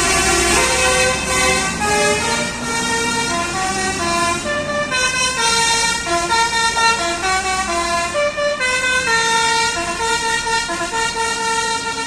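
Bus 'telolet' multi-tone air horn playing a tune of short stepped notes, over the low rumble of a bus engine running.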